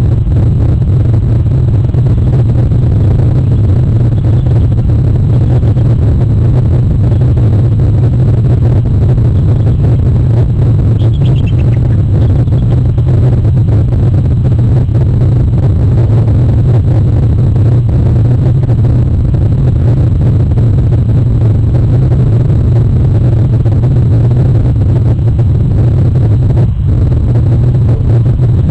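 Loud, steady low rumble that holds unchanged throughout, with a faint high descending chirp about eleven seconds in.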